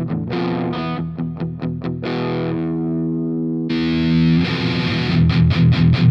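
Electric guitar through a Mooer Micro PreAmp 012 (Fried-Mien) preamp pedal boosted by a Maxon OD808 overdrive, played with heavy distortion. It opens with fast palm-muted chugs, lets a chord ring out about two seconds in, then hits a louder, brighter chord and goes back into fast chugging near the end.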